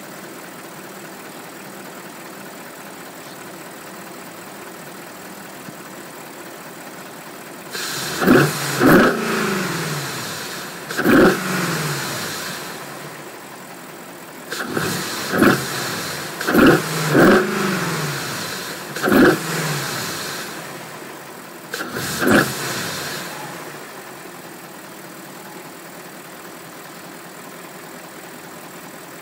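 BMW N62 V8 engine fitted with an AFE cold air intake, idling steadily, then blipped about eight times in quick revs that rise and fall, with a rush of intake air through the open filter. It settles back to idle near the end.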